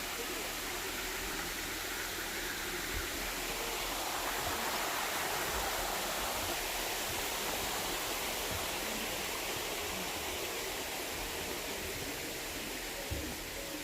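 Steady rushing of flowing water, swelling slightly in the middle.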